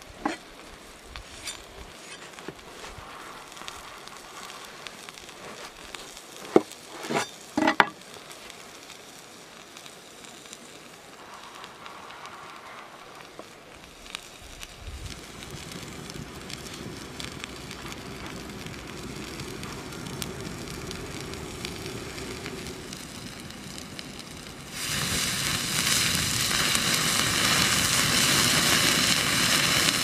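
Burger patty sizzling on a flat stone slab over a wood fire, with a few sharp knocks in the first several seconds. About 25 s in, the fire flares up around the stone and a loud, steady hiss of flames and sizzling takes over.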